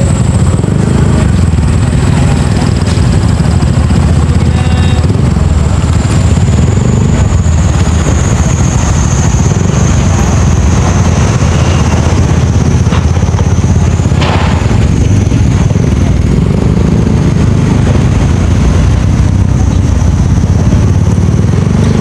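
Riding noise from a moving motorcycle picked up by a phone's clip-on microphone: loud, steady low wind and engine noise with no break. A single knock about fourteen seconds in.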